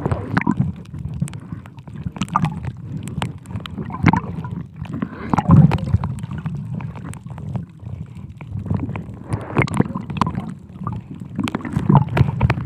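Muffled water sloshing and gurgling around a camera held underwater, in uneven surges with scattered clicks.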